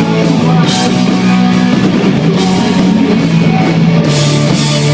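Instrumental passage of a rock song: band with electric guitars and a drum kit playing between sung lines.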